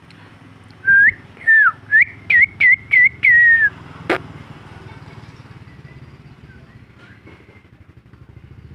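A run of about eight loud, clear whistled notes over roughly three seconds, some flicking up and one gliding down, followed by a single sharp click.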